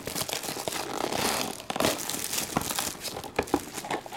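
Plastic shrink wrap crinkling and tearing as it is peeled by hand off a sealed cardboard box of trading cards.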